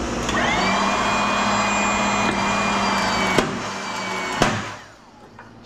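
A small electric motor, like a power tool's, spins up quickly with a rising whine and runs steadily for about four seconds. It then shuts off and winds down with a falling pitch. Two sharp clicks come near the end.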